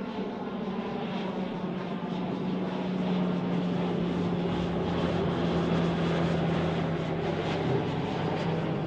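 Grob G 120TP turboprop trainer, a Rolls-Royce 250 turboprop turning its propeller, flying a slow pass with flaps and landing gear down. A steady propeller and engine hum slowly grows louder, its pitch sinking slightly in the second half.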